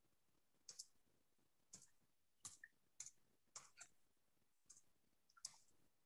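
Faint, irregular clicking from someone working a computer: about nine short, sharp clicks spaced roughly half a second to a second apart.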